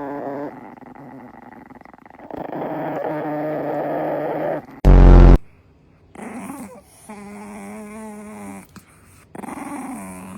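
Dog growling in drawn-out grumbles, then a long held whine in the second half. A sudden, very loud blast about halfway through cuts in briefly.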